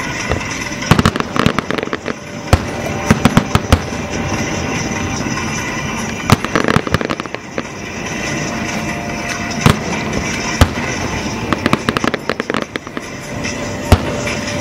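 Fireworks display: aerial shells bursting in sharp bangs and crackles that come in clusters, with single louder bangs standing out between them.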